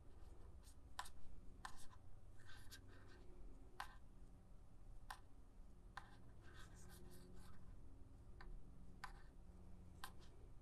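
Faint, irregular clicks and soft scratchy rustling from a metal crochet hook working yarn, pulling loops through as chains and single crochets are made.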